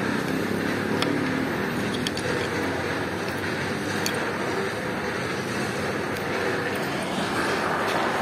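Steady background noise with no distinct event, with a few faint clicks.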